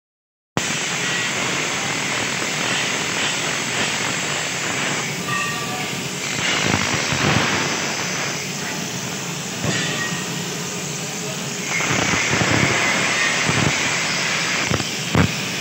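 Electric arc welding on steel: a steady hiss with crackle, with a few sharper pops near the end.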